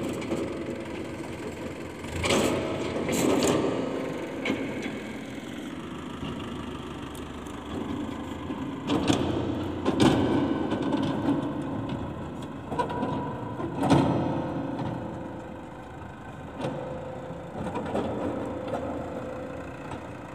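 Diesel tractor engine running under a hydraulic tipping trolley, with loud clattering knocks a couple of seconds in, twice around nine to ten seconds, and again near fourteen seconds.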